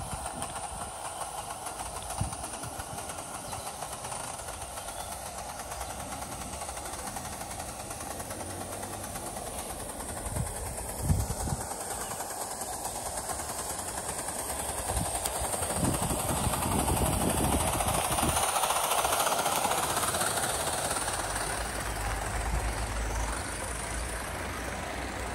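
O gauge live-steam model of an LMS Compound 4-4-0 running along garden railway track, swelling to its loudest about two-thirds through as it passes close, then easing off. A sharp knock is heard about eleven seconds in.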